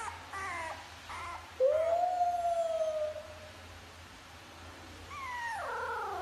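French bulldog puppy whining: a few short whines at the start, then one long, steady high call about one and a half seconds in, and a long call falling in pitch near the end.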